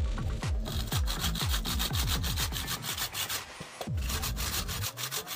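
Hand saw cutting through a block of wood in quick back-and-forth strokes, about five a second, pausing briefly about three and a half seconds in before carrying on.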